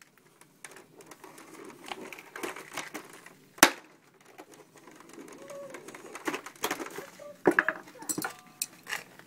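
A screwdriver jabbing and striking the screen of a Xerox flat-panel LCD monitor: a run of sharp taps and knocks, with one much harder strike about three and a half seconds in and a quick cluster of knocks near the end.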